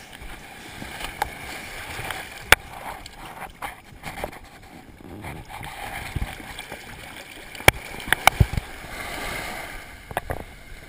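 Shallow surf sloshing and washing right around a camera held at the waterline, with several sharp splashes, one about two and a half seconds in and a cluster near eight seconds.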